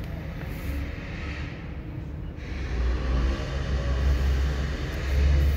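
A low outdoor rumble that swells louder about halfway through and is loudest near the end.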